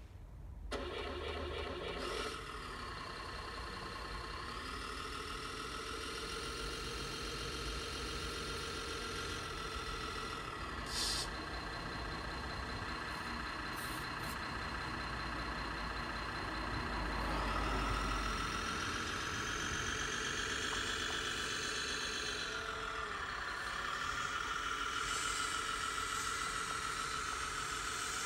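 Simulated diesel engine sound from the speaker of a 1/16-scale RC Volvo A60H articulated hauler's sound module: a start-up under a second in, then steady idling, rising in revs around the middle and changing pitch again later. There is a short click about eleven seconds in.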